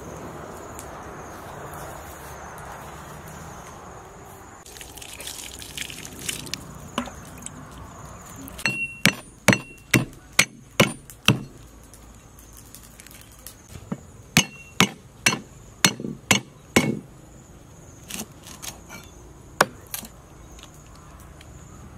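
A cleaver chopping lemongrass stalks on a round wooden chopping block. There are two runs of sharp chops, about two to three a second, some with a short metallic ring, then a few scattered chops near the end.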